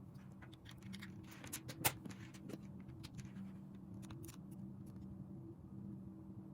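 3D printing pen running with a steady low hum, while small clicks and taps come through the first five seconds; the sharpest click is about two seconds in.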